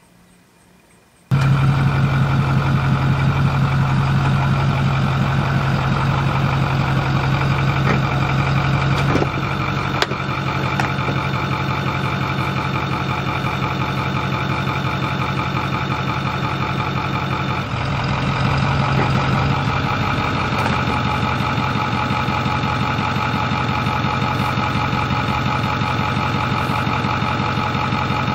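Pickup truck engine idling steadily, coming in abruptly about a second in.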